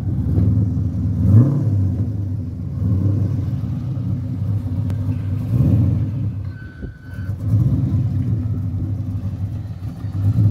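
Holden VY Commodore SS ute's LS V8 through a centre-exit exhaust, running at low revs and swelling louder a few times as the manual ute drives off slowly.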